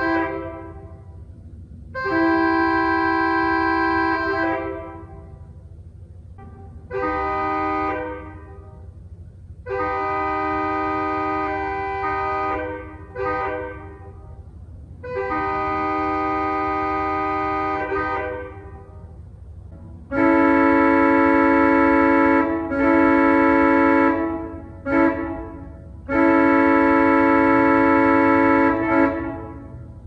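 Pipe organ playing held chords that imitate a Nathan Airchime K3LA three-chime train horn, sounded as a series of long and short blasts. About twenty seconds in, a louder, lower horn chord takes over, imitating a Nathan P3 old-cast horn.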